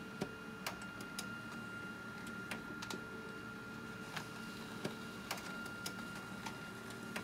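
HP LaserJet 5 laser printer running a print job: a steady hum with a constant high tone and scattered sharp clicks as the sheet is fed through, coming out into the top tray near the end.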